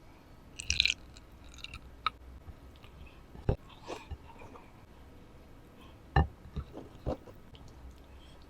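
Close-up eating sounds of a person chewing chicken curry and rice: scattered wet smacks and clicks with short pauses between them. A brief hissy, slurping burst comes just under a second in.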